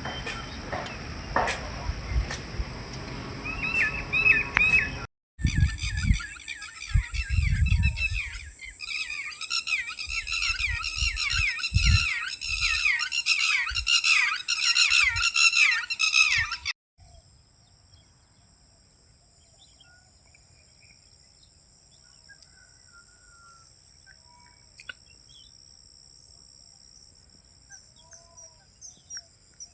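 A flock of birds chirping loudly in quick repeated calls, with low wind thumps on the microphone. After a sudden cut about 17 seconds in, only faint scattered bird calls remain over a steady high hiss. The opening few seconds are low rumble with clicks, before another cut.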